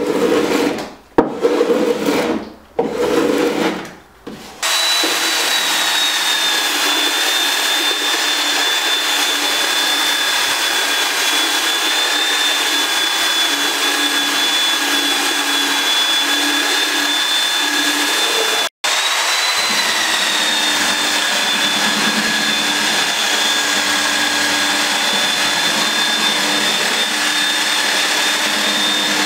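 Three short rasping strokes of a spokeshave shaving a wooden kayak stem. Then an electric power planer starts about four and a half seconds in and runs steadily with a high whine. After a brief break about 19 seconds in, an electric belt sander with 80-grit paper runs steadily on the wooden hull with a similar whine.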